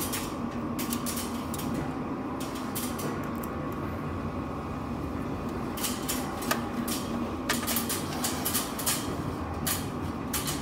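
Screwdriver turning a screw in the sheet-metal case of a Uniview 8-channel PoE NVR: irregular small metallic clicks and scrapes in short clusters, over a steady background hum.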